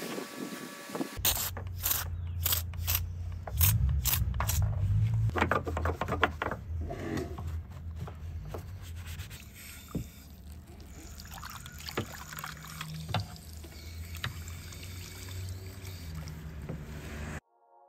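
A pressure-washer spray hissing against a car's side for about a second, then a detailing brush scrubbing soapy suds in a car's boot jamb, with irregular wet scraping strokes over a low steady hum. It cuts off suddenly near the end.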